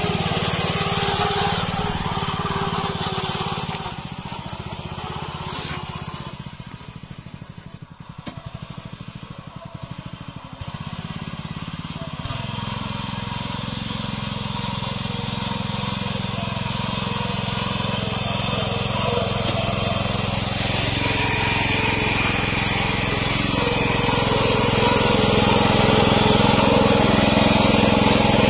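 Honda single-cylinder petrol engine of a Yavuz 300 two-wheel tractor running steadily while hauling a trailer loaded with firewood logs. It grows fainter for several seconds early on, then steadily louder towards the end.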